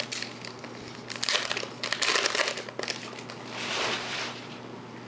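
A trading-card pack wrapper crinkling as it is torn open and handled, in crackly bursts from about a second in to nearly three seconds, then a softer rustle near four seconds.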